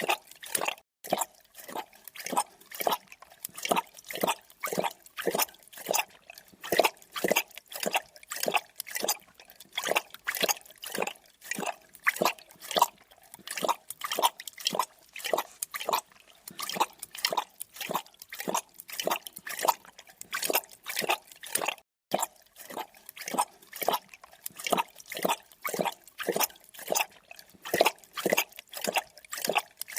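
A creature lapping up liquid: short wet laps in a steady rhythm, about three a second.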